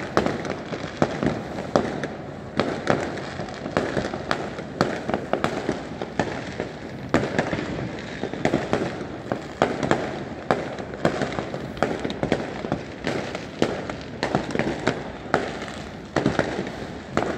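Fireworks going off across the city: a dense, continuous run of overlapping bangs and pops of varied loudness, several sharp ones each second over a steady rumble of more distant bursts.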